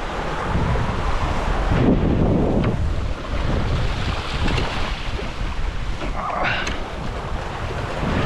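Strong wind buffeting the microphone over rushing, breaking seawater around a sailboat's hull and wake in 30-plus-knot winds, with a brief rising squeak about six and a half seconds in.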